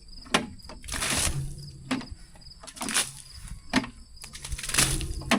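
A series of irregular sharp knocks, about one every second, with scraping and scuffing between them.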